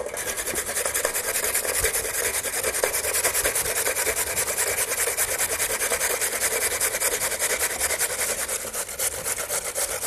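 Raw peeled potato being grated coarsely on a stainless-steel box grater: a steady run of quick rasping strokes, several a second.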